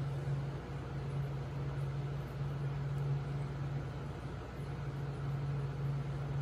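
Steady low hum and hiss of aquarium equipment running, with an aerator sending up a stream of bubbles.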